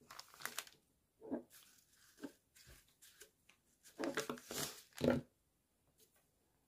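Kraft paper bag rustling and crinkling as hands handle and press it flat, in short irregular rustles, the loudest cluster a little past the middle, stopping about five seconds in.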